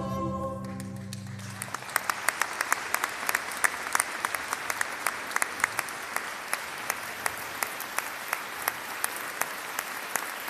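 A choir and folk band's final held chord dies away within the first second or two, and audience applause takes over. One pair of hands close by claps sharply and loudly above the rest, a few times a second.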